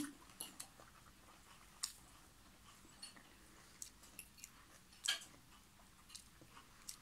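Quiet eating sounds: soft chewing and a few light, scattered clicks of a fork against the serving tray as food is picked up onto a piece of pide bread, the sharpest click about five seconds in.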